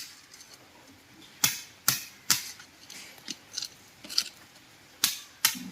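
A hammer striking concrete about eight times at an uneven pace, some blows sharper than others, breaking up the concrete slab laid over the borewell.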